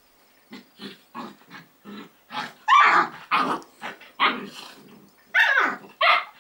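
Long-haired German Shepherds, an adult and a puppy, play-fighting, with a run of about a dozen short play growls and barks starting about half a second in, loudest in the middle and near the end.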